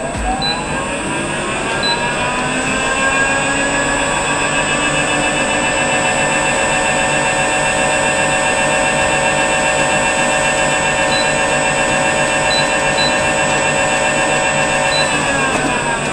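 Electric drive motor of a PRIMIX Agi-Homo Mixer vacuum emulsifying kettle running. Its whine rises in pitch as it speeds up over the first two seconds, holds steady, then falls as it slows down near the end.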